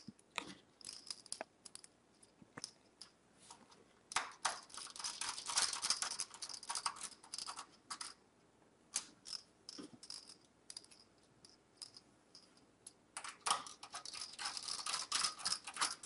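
Screws being driven into a power supply's mounting holes through the steel back of a computer case. There are two runs of rapid scratchy clicking from the screws and tool, one about four seconds in and one from about thirteen seconds in, with scattered single metallic clicks between.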